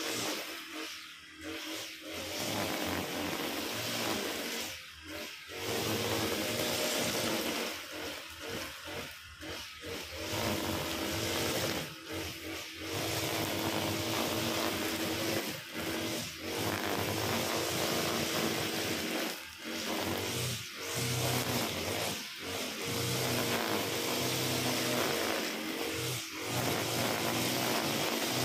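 Honda GX35 four-stroke brush cutter running at cutting speed as its head cuts through tall grass. The engine sound is steady but dips briefly in loudness every few seconds.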